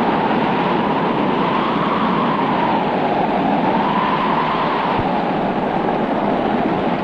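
Gale-force wind howling over a steady rush of noise, its pitch slowly rising and falling.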